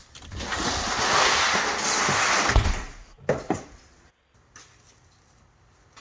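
A door sliding, a rushing scrape of about two and a half seconds that ends in a thump, followed by two light clicks.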